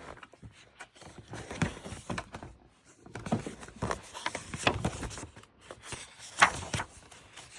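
A book being handled: scattered light knocks and paper rustles, with one sharper knock about six and a half seconds in.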